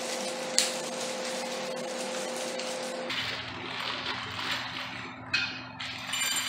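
Plastic bags of opener hardware being handled and rustled over a steady hiss, with a sharp click about half a second in and a few sharp clicks near the end.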